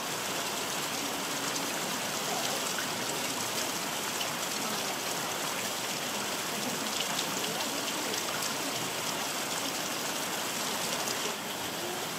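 Heavy rain pouring steadily, a constant even hiss.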